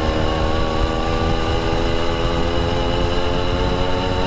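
Small two-stroke engine of a motorized bicycle running at a steady cruising speed, with a rough rumble of wind and road noise beneath.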